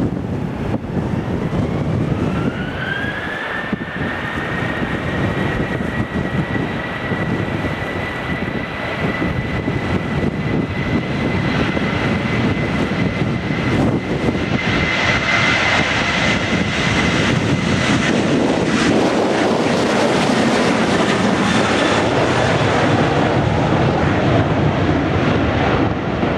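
Jet airliner's engines spooling up, a whine that rises for the first few seconds and then holds steady over a loud rush. The rush swells about halfway through as the aircraft passes, with wind buffeting the microphone.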